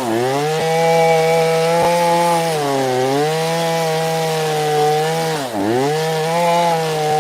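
Two-stroke chainsaw fitted with a carving bar, running at full throttle while the bar is worked against wood to break it in. Its engine note dips under load twice, most deeply near the end.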